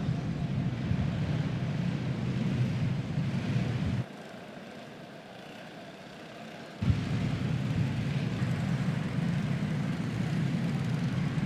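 Dirt racing karts' small single-cylinder Predator engines running steadily as the field circles under caution. The engine noise drops suddenly to a faint hum about four seconds in and comes back just as suddenly about three seconds later.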